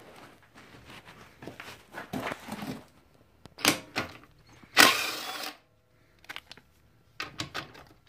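Scattered clicks, taps and rustles of hands working on an ATV's wiring-harness connectors, with one louder burst of noise about five seconds in.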